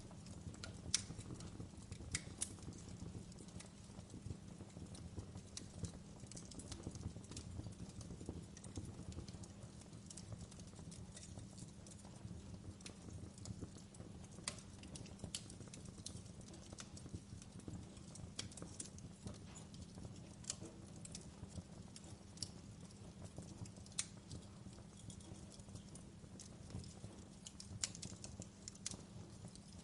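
Wood fire burning with a soft low rumble and scattered irregular crackles and pops.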